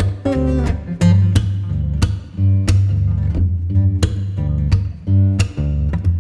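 Background music: strummed acoustic guitar over a steady bass with a regular beat.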